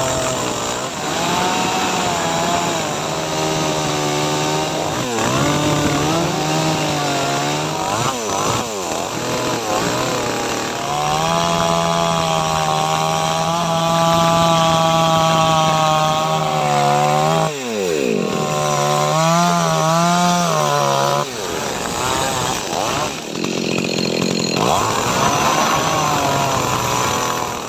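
Efco MT6500 two-stroke chainsaw cutting wood at high revs, its engine note rising and falling as the chain works in and out of the cut, with a sharp drop in revs about two-thirds of the way through.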